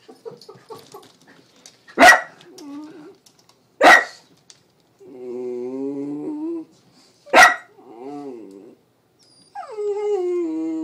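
Two small dogs alert-barking at a rabbit outside: three sharp barks, with long, drawn-out pitched growls in between and toward the end, the last one sliding slightly lower.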